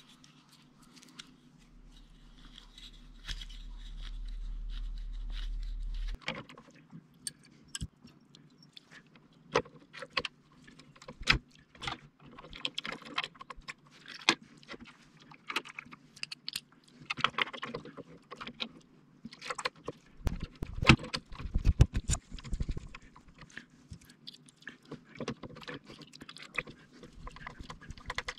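Hands working on plastic machine parts: scattered clicks, scrapes and knocks of plastic and hardware being handled and fitted, with a cluster of heavier thumps a little past the middle. Near the start a low hum swells for a few seconds and cuts off suddenly.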